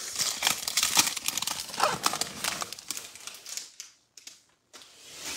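Foil wrapper of a 2021-22 Prizm Draft Picks basketball card pack crinkling as it is handled and opened, with the cards sliding out, mostly in the first three and a half seconds.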